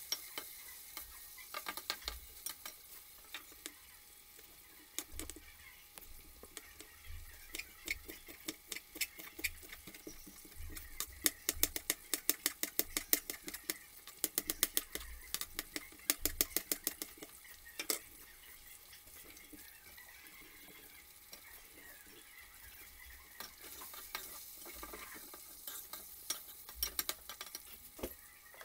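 Kitchen knife chopping fresh coriander and green chilli on a plastic cutting board: the blade knocks sharply on the board, scattered at first, then in a fast run of several knocks a second through the middle, with a few more near the end.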